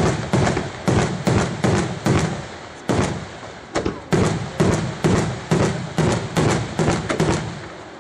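Aerial firework shells bursting in quick succession, about two sharp bangs a second, each trailing off in a short echoing rumble.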